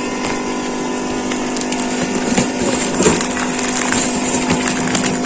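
A cardboard box being handled, with rustling and short knocks that pick up about two seconds in, over a steady mechanical hum.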